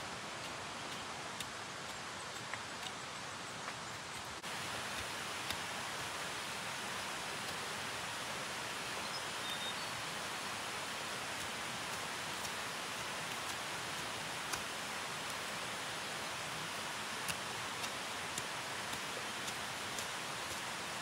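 Steady, even hiss of outdoor background noise with scattered faint ticks, a little louder from about four seconds in.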